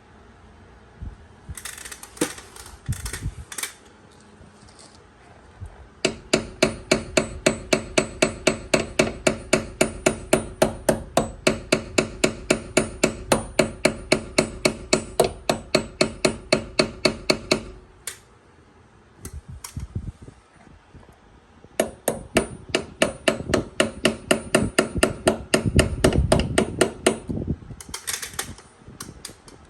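Hammer tapping a replacement part into a car door hinge. A few scattered taps come first, then a long steady run of about four strikes a second. After a pause there is a second run near the end, and each blow rings of metal.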